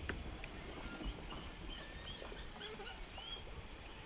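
Quiet marsh ambience: many small birds giving short chirping calls throughout, with a few faint taps or clicks close by.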